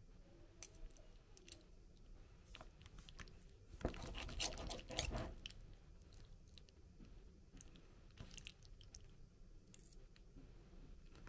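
Metal knife and fork working food in a plastic takeaway tray: scattered light clicks and scrapes of cutlery on plastic, with a louder, dense run of clicks and crackles about four seconds in that lasts a second and a half.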